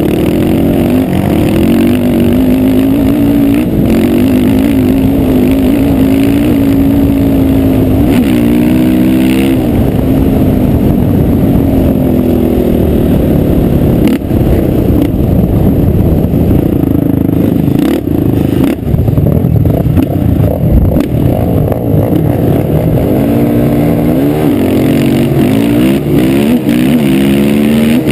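Honda 450 sport quad's single-cylinder engine being ridden hard over sand, revving up in pitch again and again and dropping back as it shifts or lets off, with rumbling wind on the helmet-mounted microphone.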